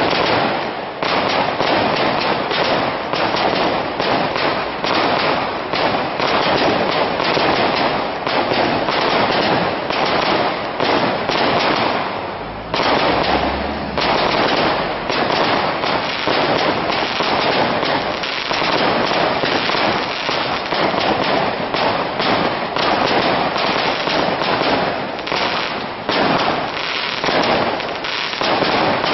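Fireworks display: a dense, near-continuous barrage of bangs and crackling from bursting aerial shells, with a brief lull about twelve seconds in.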